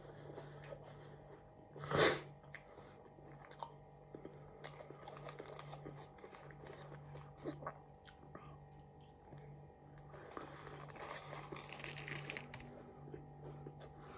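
Close-up chewing and crunching of fried takeaway food, with paper wrapping crinkling and rustling. One louder, sharp crunch comes about two seconds in, and a longer stretch of rustling comes near the end.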